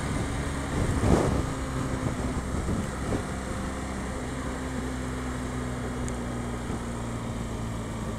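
BMW GS adventure motorcycle riding along at a steady pace, its engine running under a steady rush of wind and road noise, with a short louder swell about a second in.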